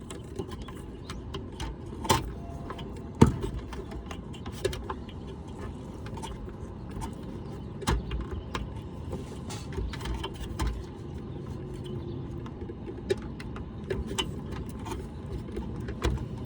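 Scattered sharp clicks and knocks of hands and tools working on an air conditioner's condenser unit while a new run capacitor is wired in and fitted, over a steady low background rumble. The loudest knocks come about two, three and eight seconds in.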